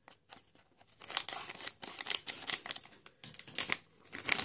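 Crinkly foil-plastic blind bag being handled and opened, a run of short, irregular crackles and rustles starting about a second in.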